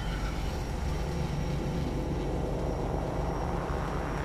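Homemade sound effect for a spaceship's engines firing: a loud, steady rumble with a hiss on top.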